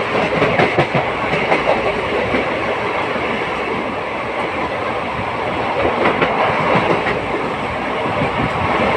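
Passenger train running at speed on the rails, heard from on board: a steady rumble of wheels and coaches with runs of clicks as the wheels cross rail joints, in the first second or two and again about six seconds in.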